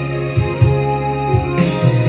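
Karaoke backing track playing from the MagicSing E2 player through the TV: steady instrumental music with no singing.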